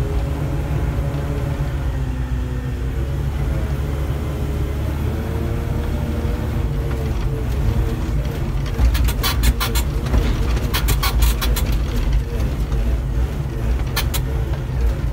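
Diesel engine of an SDLG wheeled excavator running steadily as the machine drives, heard from inside the cab as a deep rumble. A quick series of rattles and clanks comes about nine to twelve seconds in, with another pair near the end.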